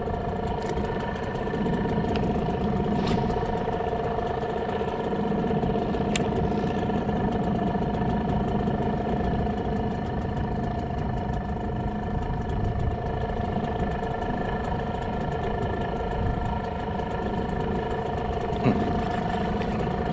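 A boat's engine running at a steady speed, with a low rumble beneath it.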